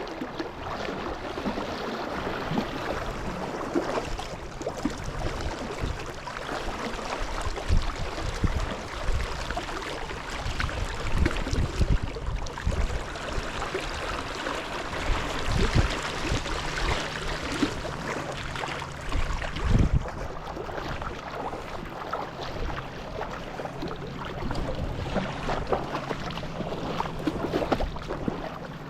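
River current rushing steadily, with irregular low thumps.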